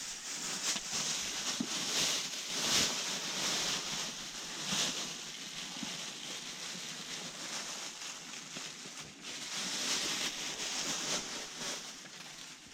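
Rustling of clothing and gloves as a fishing line is hauled up hand over hand through an ice hole. The rustle swells and fades unevenly, loudest about three seconds in and again near ten seconds.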